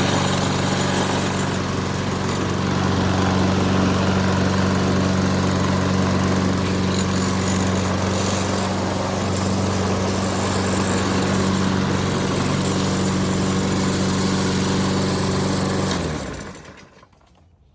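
Toro Recycler 21-inch rear-wheel-drive lawn mower's small petrol engine running steadily just after starting, then shutting off near the end and dying away over about a second.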